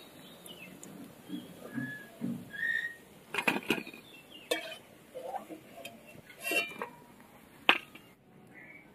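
Perforated steel spoon clinking and scraping against a metal kadai and a steel plate as fried fritters are lifted out and set down. Several sharp clinks, the loudest near the end.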